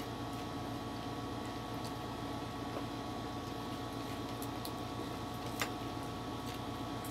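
Wall air conditioner humming steadily, with a light click about five and a half seconds in.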